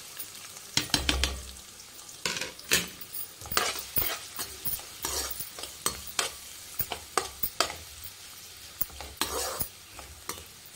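Chopped onions sizzling in hot oil in a metal kadhai, stirred with a metal spatula that scrapes and clinks against the pan in irregular strokes, the loudest about a second in.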